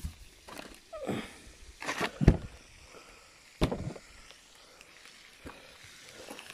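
Handling knocks and rustles from a handheld camera being moved about: a run of irregular thumps, the loudest about two and three and a half seconds in.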